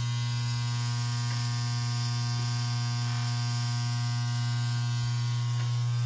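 Hydrolevel VXT electronic water feeder on a steam boiler running with a steady, pretty loud electrical buzz as it feeds water into the boiler after the low water cutoff has signalled low water.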